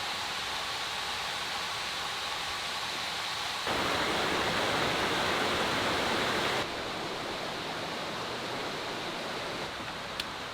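Steady rushing outdoor ambience. For about three seconds in the middle it switches abruptly to a louder, fuller rush, then drops back just as abruptly.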